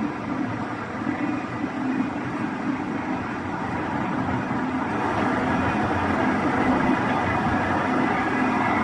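Electric fan motor armature spinning during a balance check: a steady mechanical hum with a whine over it, getting a little louder about halfway through.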